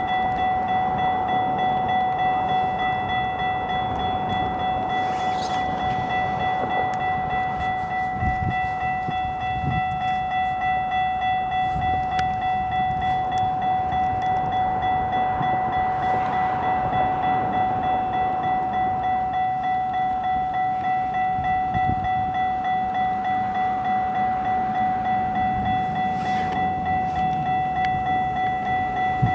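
Railway level-crossing warning bell ringing steadily in rapid, even strokes while a train runs past over the tracks.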